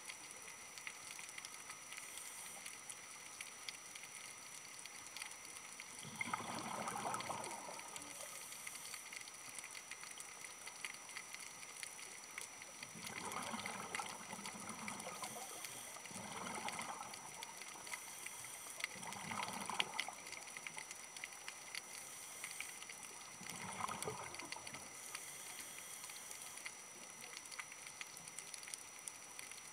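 Underwater, a scuba diver's exhaled breath bubbling out of the regulator in five bursts about a second long, several seconds apart, over a steady faint hiss and crackle.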